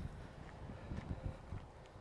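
Footsteps walking along a dirt trail, a series of soft, irregular thuds.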